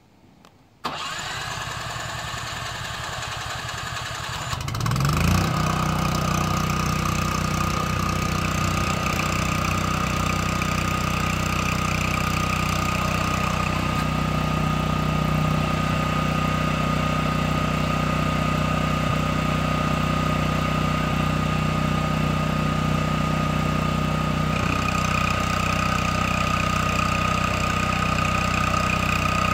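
Cummins Onan QG 2500 LP RV generator being started: the starter cranks for about three and a half seconds from about a second in, then the engine catches and runs steadily with no load. Its tone shifts slightly about 25 seconds in.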